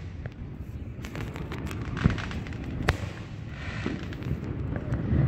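Aerial firework shells bursting: two sharp bangs, about two seconds and three seconds in, among fainter pops.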